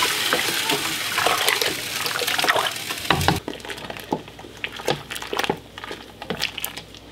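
A wooden spoon stirring autumn olive juice in a large stainless steel stockpot: the liquid swishes and sloshes loudly for about three seconds. Then the stirring goes quieter, with a few light knocks of the spoon against the pot.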